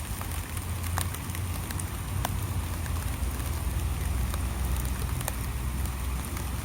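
Light rain falling, a steady patter with scattered sharp ticks of drops striking nearby surfaces, over a low rumble.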